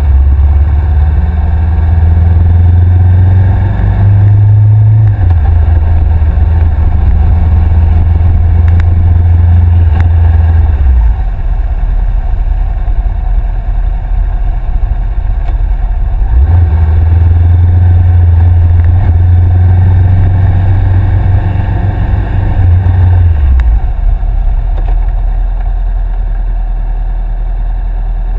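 Honda CBR500R parallel-twin engine through a Two Brothers aftermarket exhaust, running under way. The engine note drops about a third of the way in, picks up again past the middle, and settles to a steady idle near the end as the bike stops in traffic.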